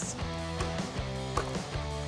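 Background music: sustained chords that change every half second or so.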